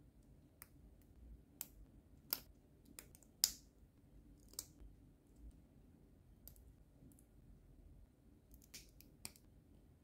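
Hard plastic model-kit parts of an HG 1/144 Shin Burning Gundam clicking and snapping as they are pressed together and handled: irregular sharp clicks, the loudest about three and a half seconds in, with a quick cluster near the end.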